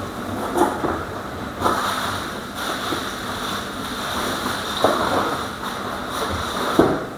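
Packaging being handled during an unboxing: steady rustling with a few sharp knocks.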